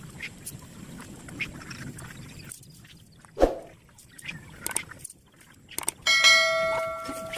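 Scattered light knocks and clatter with one sharp knock midway, then a metal object struck near the end, ringing with a clear bell-like tone that fades over about a second.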